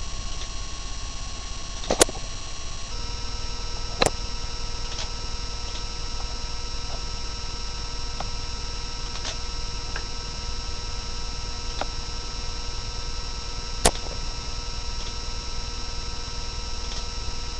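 Steady electrical hum and whine with a low buzz underneath, broken by three sharp clicks about two, four and fourteen seconds in, and a few fainter ticks.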